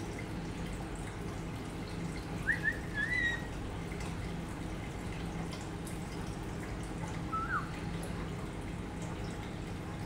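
Water trickling steadily into an aquarium, with a few short whistled chirps about two and a half seconds in and one more about seven and a half seconds in.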